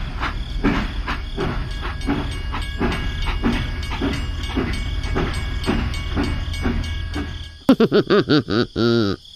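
A train running on rails: a steady low rumble with a regular clack about three times a second. Near the end it gives way to a loud wobbling, bouncing tone that swoops up and down.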